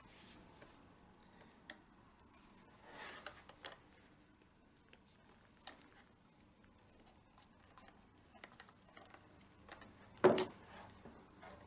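Leather tabla strap (badhi) being pulled through the rings and braid of the drum, making faint rustles, scrapes and small clicks, with one louder brief scrape about ten seconds in.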